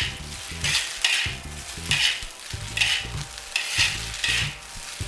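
Egg-coated rice and scallions being stir-fried in a wok: stirring and tossing strokes about once a second, each with a burst of sizzling and a knock of the tool against the wok.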